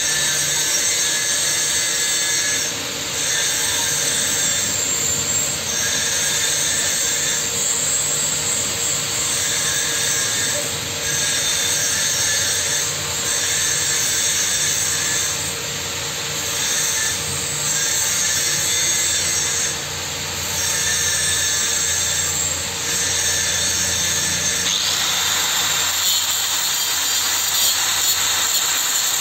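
Workshop power tool running steadily with a high hiss, dipping briefly every two to three seconds.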